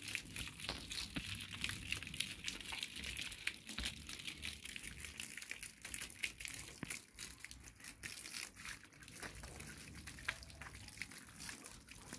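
Irregular rustling and crackling, a dense run of small uneven clicks with a faint hiss behind them.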